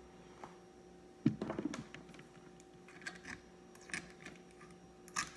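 Light clicks and clatter of multimeter test probes being handled and set against a subwoofer's voice-coil terminals, with a denser clatter about a second in. A faint steady hum lies underneath.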